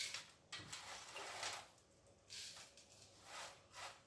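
Faint, irregular handling sounds: short rustles and light knocks of kitchen items being moved about at a countertop blender.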